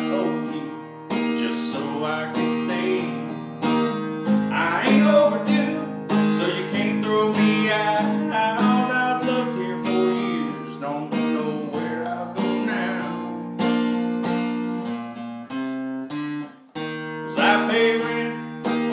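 Acoustic guitar music: chords strummed in a steady rhythm with a melody line over them, breaking off briefly about three-quarters of the way through.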